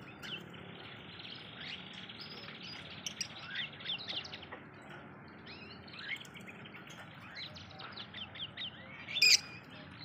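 Blue masked lovebird chattering: a string of quick, high chirps and short squeaks that rise and fall, with one louder, harsher call about nine seconds in. A faint steady high tone runs underneath for the first few seconds.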